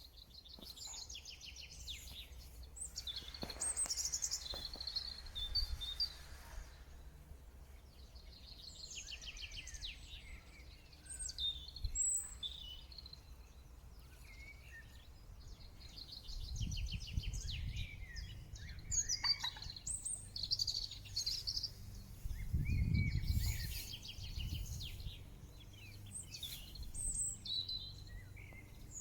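Songbirds singing, with repeated trilled phrases and short chirps coming and going throughout. A low rumble rises twice in the second half.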